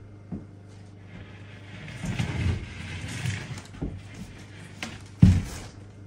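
Work boots stepping and shuffling on an OSB plywood floor, with rustling and a few light clicks over a low steady hum. One heavy thump, the loudest sound, comes about five seconds in.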